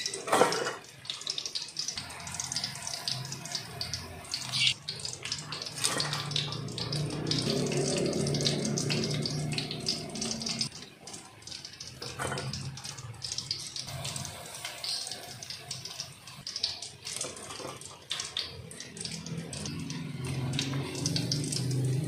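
Chicken pieces deep-frying in hot oil: a steady sizzle full of crackles and pops. The oil sputters more than usual because of the egg on the chicken.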